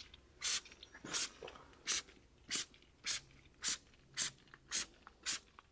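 Hand trigger spray bottle spraying tyre shine onto a truck tyre: a quick run of about nine short sprays, evenly spaced a little over half a second apart.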